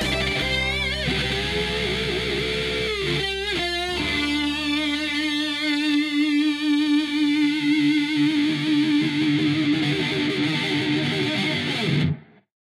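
Distorted electric guitar playing a melodic lead, settling about four seconds in on one long held note with wide vibrato that cuts off sharply near the end.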